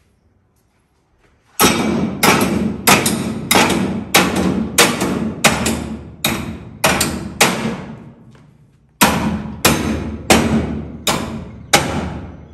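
Heavy hammer blows on steel, struck at a steady pace of a little under two a second, each ringing briefly; they stop for about a second near two-thirds through, then go on.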